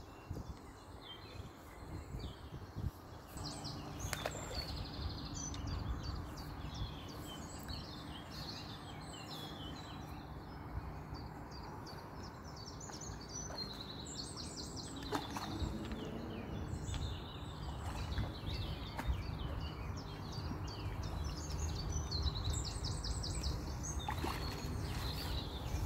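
Small birds singing and chirping in quick repeated phrases throughout, over a low rumble of wind on the microphone and a faint steady low hum.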